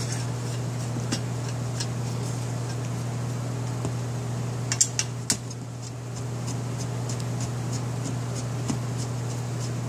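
Light metallic clicks and taps as a bathroom exhaust fan is taken apart with a nut driver, the nut holding its parts being removed. A few sharper clicks come about halfway through, over a steady low hum.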